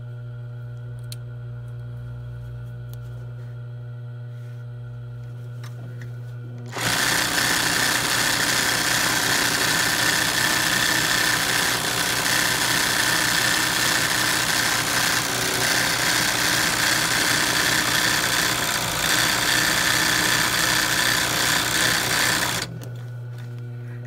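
ROYAL sewing machine stitching fast in freehand machine embroidery on cotton in a hoop. A steady low hum comes first; about seven seconds in the needle starts running at speed for some fifteen seconds, then stops abruptly near the end.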